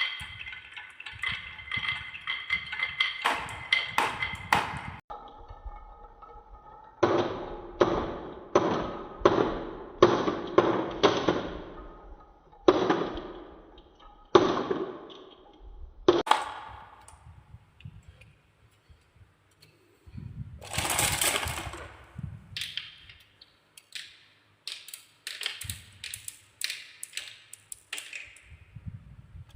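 Balls rolling and clattering down a handmade marble run. First a run of ringing clicks, then a series of sharp knocks about two a second, a short rushing stretch past the middle, and more clicking near the end.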